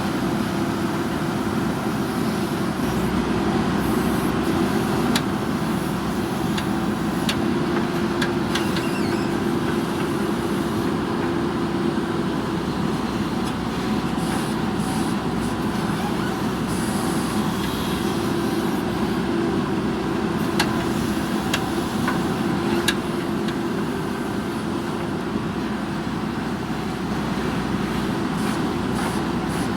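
Diesel engine of a JCB backhoe loader running steadily while it works, with a few brief sharp clicks.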